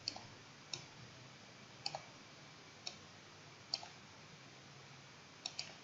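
Faint computer mouse clicks, about seven scattered sharp clicks with two in quick succession near the end, over a faint low hum.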